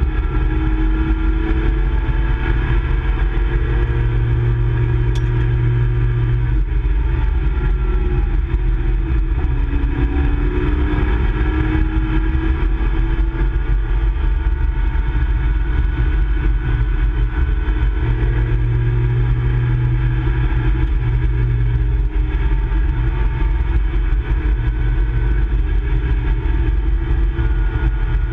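Nissan Skyline GT-R KPGC10's S20 2-litre twin-cam straight-six running hard at track speed, heard from inside the cabin, its note falling and rising again with throttle and gear changes.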